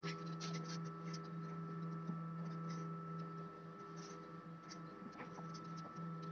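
Steady electric hum of a chicken-egg incubator running, with light scratching and small clicks as an egg is handled and turned on the incubator's candling light.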